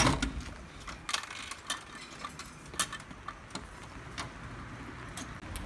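A thump right at the start, then scattered light clicks and clinks as spice bottles are handled and taken out of a vending machine's dispensing flap.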